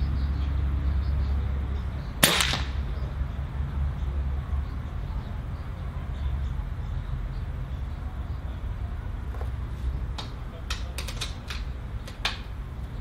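A single shot from a Cometa Orion bullpup 5.5 mm (.22) regulated PCP air rifle: one sharp crack about two seconds in. Near the end come a few light clicks, over a low steady rumble.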